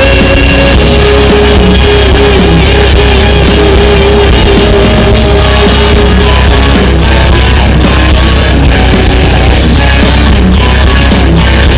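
Loud rock music with drums, distorted guitar and a steady beat.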